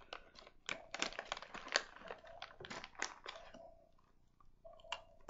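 Plastic snack packet crinkling as a hand rummages in it, with crunching, then quieter chewing of a crunchy quinoa and peanut butter snack in the last second and a half.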